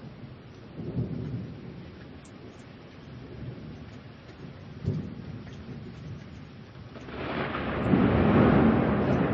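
Steady rain with thunder: low rumbles about a second in and about five seconds in, then a louder thunder roll that swells up about seven seconds in.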